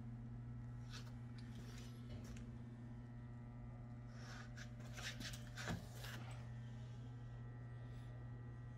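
Quiet room tone: a steady low electrical hum, with a few faint rubbing and tapping sounds around the middle.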